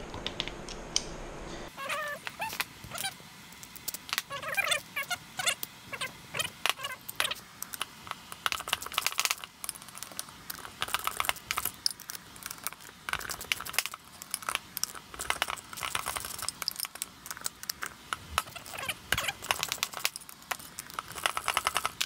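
Metal hand tools clinking and clicking on a workbench as the bolts and nuts holding the two aluminium wheel halves are loosened, in quick, irregular strokes.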